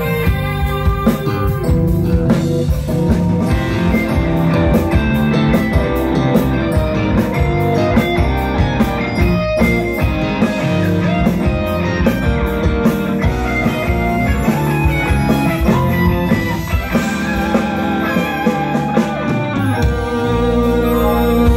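Live rock band playing loudly: electric guitars, bass guitar, keyboard and drum kit together. Near the end the bass and drums drop away for a couple of seconds, then the full band comes back in.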